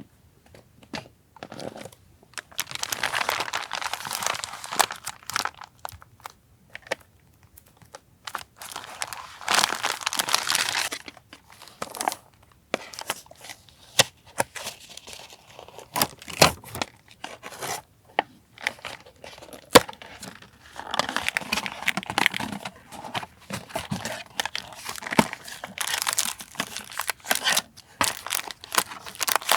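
Paper and plastic packaging being torn open and crinkled by hand, in several rustling stretches broken up by sharp taps and clicks.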